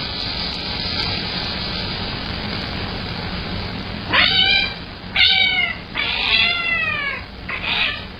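A house cat meowing four times over a steady hiss, starting about halfway through. The third meow is the longest, and each one falls in pitch.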